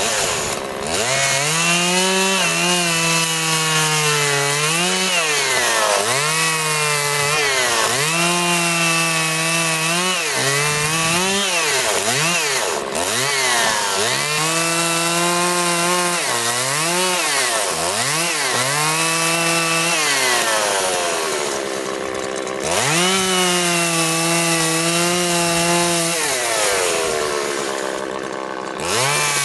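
Two-stroke chainsaw carving into a log. The engine revs up, holds high while cutting and drops back again and again as the throttle is squeezed and released. It settles briefly to a lower idle about twenty seconds in and again near the end.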